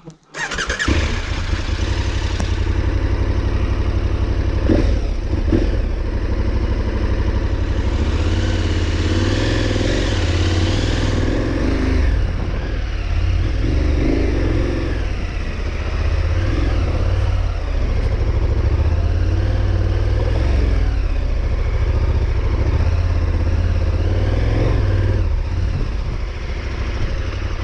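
Big adventure motorcycle's engine running under a rider's throttle, its low note rising and falling, with some clatter. It cuts in abruptly right at the start and then runs on without a break.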